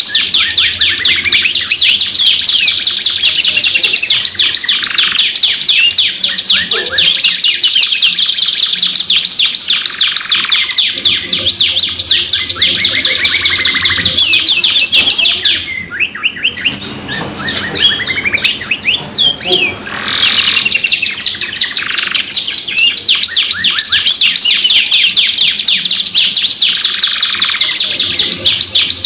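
Domestic canaries singing a long, continuous song of fast rolling trills and chirps, with a brief lull a little past halfway.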